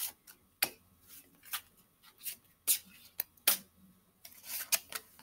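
Oracle cards being shuffled and handled on a table: a string of sharp card snaps and flicks, then a longer rustle of cards about four seconds in.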